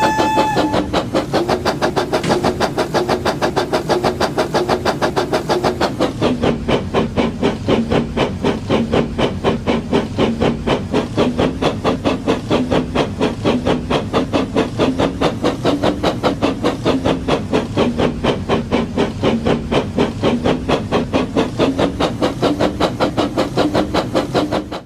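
Battery-powered Labo brick toy train running: a steady motor hum under a rapid, even chugging beat, with the tail of a whistle toot in the first second. The sound cuts off abruptly at the end.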